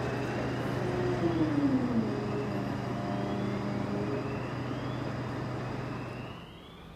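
Fire engines' diesel engines running at a fire scene: a steady low hum over a rumble, with a tone gliding down about a second in. The sound turns quieter near the end.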